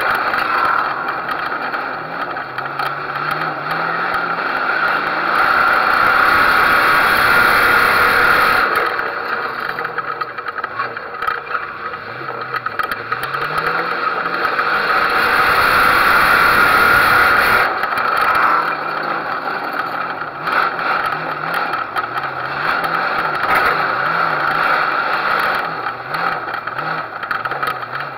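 Figure-8 race car's engine heard from a camera on its hood, the revs rising and falling again and again at low speed, with rattling and two longer stretches of louder rushing noise.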